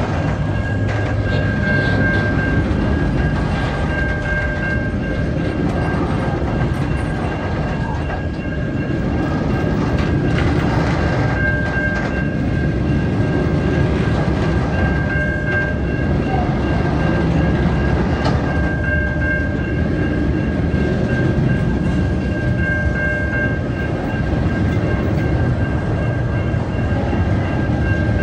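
Container wagons of a freight train rolling past at a level crossing: a steady rumble with the clatter of wheels over the rails. A thin, high steady tone runs through it and swells several times.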